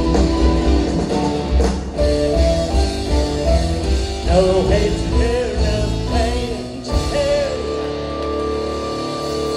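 Live rock band of electric guitar, bass, keyboards and drums playing loud and hard, with a wavering lead melody over the top in the middle. A little past halfway the drums and bass drop out, leaving a steady held chord ringing.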